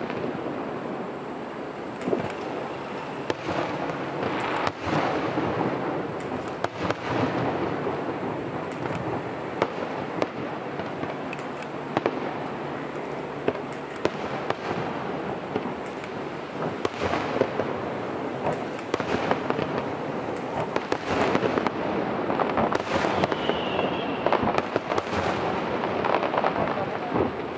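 Aerial fireworks shells launching and bursting: a series of sharp bangs and crackles at irregular intervals over a steady rushing noise. The bangs come thicker near the end.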